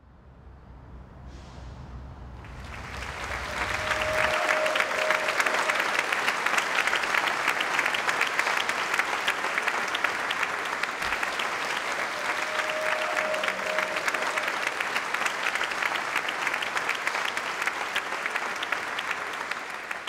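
Large audience applauding in a big hall. The clapping swells over the first few seconds, holds steady, and tapers off near the end.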